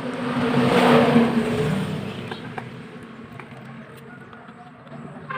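A motor vehicle passing by, its engine sound swelling to a peak about a second in and fading away, over a steady low hum.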